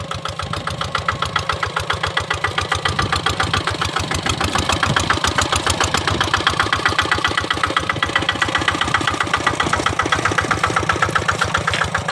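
Kubota RD65 DI-1S single-cylinder diesel engine of a Quick Impala hand tractor running with a rapid, even chugging as the tractor works through a muddy rice paddy. It grows louder over the first few seconds, then holds steady.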